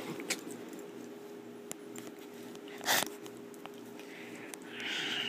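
A puppy nosing around close to the microphone on bedding: soft rustling, a short sharp sniff about three seconds in, and a longer breathy sniff near the end.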